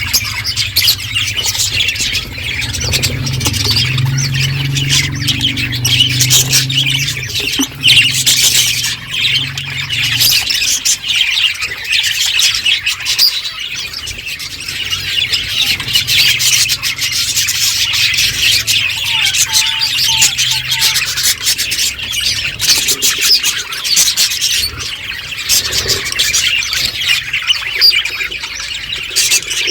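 A group of budgerigars chattering and chirping continuously, with many short clicks mixed in.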